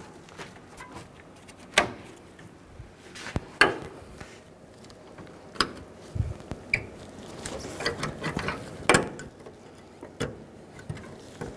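Plastic grille clips being pushed into the truck's front end, with a few separate sharp clicks and knocks as they snap into place and the plastic grille is pressed and shifted against the body.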